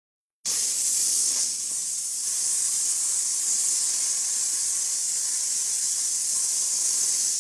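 A loud, steady hiss that starts suddenly about half a second in and cuts off abruptly near the end.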